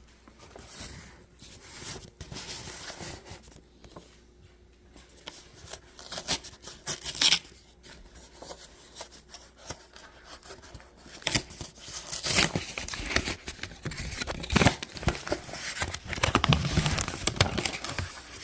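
Packaging of a new GoPro camera being opened by hand: irregular bursts of tearing and crinkling with clicks and knocks, busiest in the second half.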